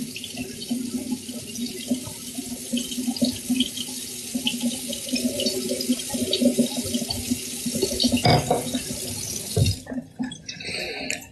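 Tap water running steadily into a sink. There is a knock about eight seconds in, and the water cuts off shortly after.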